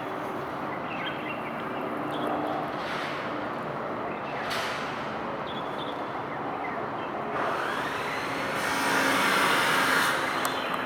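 Steady traffic noise, with a vehicle passing close by that grows louder from about seven seconds in, peaks with a high whine near nine seconds and fades toward the end.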